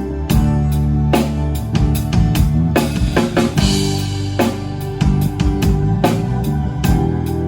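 A band playing an instrumental passage: a drum kit keeps a steady beat of kick and snare hits under sustained bass and electric guitar notes, with a cymbal wash about three and a half seconds in.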